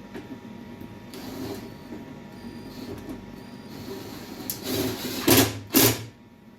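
Tool and handling noise while bolts are worked with a socket: soft clatter, then two short, loud rattling bursts about five and a half seconds in.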